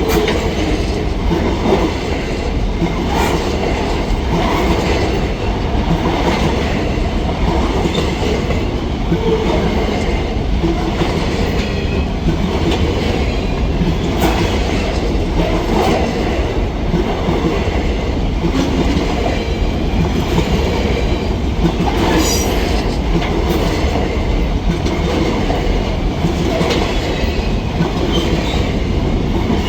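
Freight train wagons rolling past close by: a steady loud rumble and clatter of wheels on the rails. A brief high squeal from the wheels comes about two-thirds of the way through.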